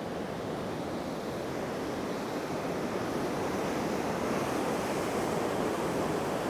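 Deschutes River whitewater rapids rushing steadily at spring high flow, growing slightly louder.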